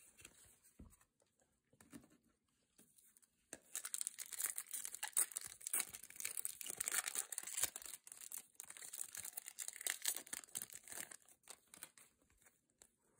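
Foil wrapper of a Topps trading-card pack being torn open and crinkled: a few faint handling ticks, then about eight seconds of dense crinkling crackle.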